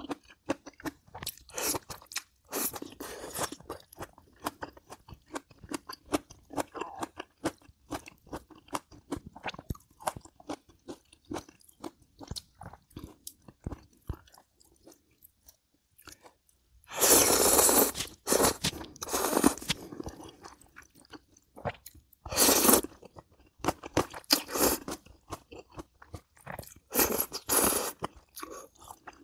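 Close-miked eating: steady chewing with many small wet mouth clicks and crunches, and several louder noisy bursts in the second half.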